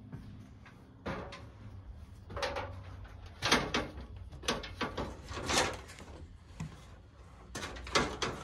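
Irregular knocks, scuffs and creaks of a person clambering about a roof space among timber framing and a ladder, with heavier knocks about three and a half seconds in, around five and a half seconds and again near the end.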